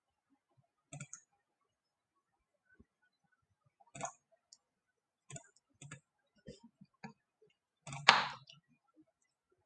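Computer mouse button clicking: about seven short, sharp clicks at uneven intervals, the loudest and longest about eight seconds in.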